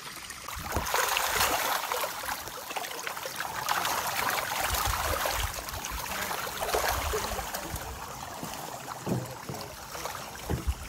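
Water splashing and rushing: a noisy wash that swells up about a second in and eases off after about six seconds.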